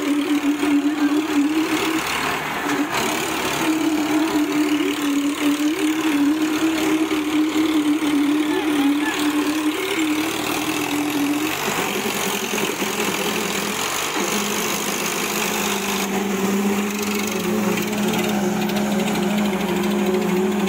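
Diesel engines of an Eicher 551 and a Kubota 4501 tractor running at high revs with a steady, slightly wavering note. About twelve seconds in the pitch drops and settles lower as the engine speed falls.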